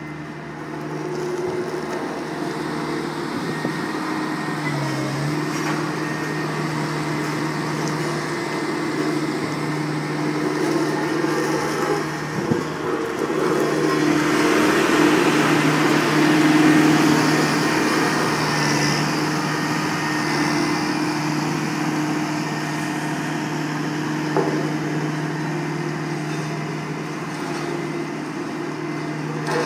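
Bomag BW213D-4 single drum roller's diesel engine running at a steady pitch as the roller drives about, growing louder for a few seconds in the middle as it passes close.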